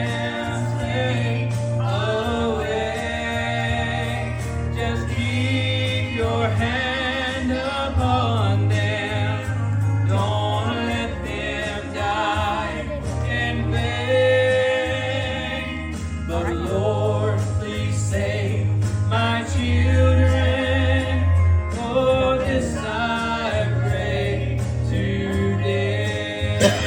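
A gospel song: a man singing with vibrato over instrumental accompaniment with a strong, steady bass.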